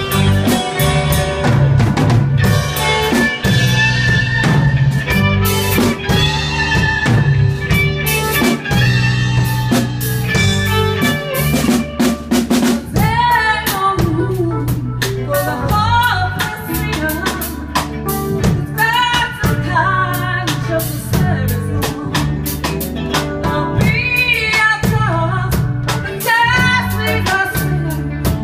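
A live band plays: drum kit, electric bass and electric guitar, with a woman singing lead over them.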